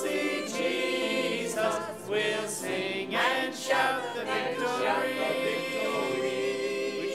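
Church choir singing a hymn together in many voices, ending on a long held note near the end.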